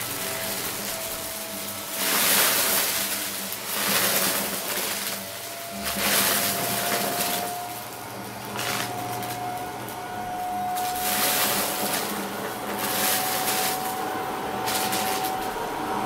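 Upright vacuum cleaner running, its motor whine creeping slightly higher, with loud rattling surges roughly every two seconds as the nozzle sweeps over and sucks up small beads and glitter.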